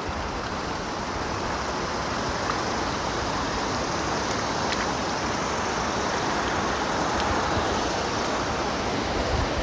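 Steady rush of running water, like a stream or small waterfall, with no breaks or changes.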